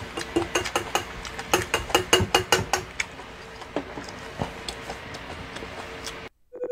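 A run of sharp clicks and light knocks, quick and dense for the first few seconds and sparser afterwards, over a faint steady hum. The sound cuts out briefly near the end, and an incoming-call ringtone starts just as it returns.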